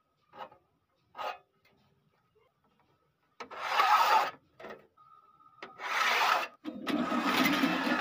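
A steel scriber scratching lines into a steel sheet along a metal straightedge: two brief faint scrapes, then from about three and a half seconds in a series of longer, louder drawn strokes, one after another.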